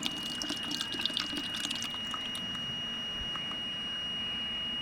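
Water running and dripping from the water nozzles of an SHR beauty machine's cooling circuit as its pump is switched on to check the flow. A steady high-pitched electronic beep from the machine sounds throughout, with crackly splashing strongest in the first couple of seconds.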